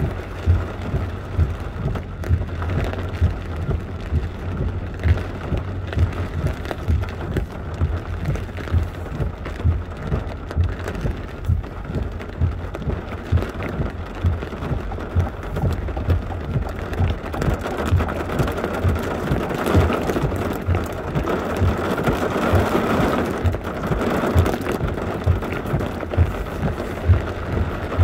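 Rain drumming on a car's roof and windscreen, heard from inside the moving car: a steady wet hiss with many irregular dull drop thuds. The hiss swells for several seconds about two-thirds of the way through.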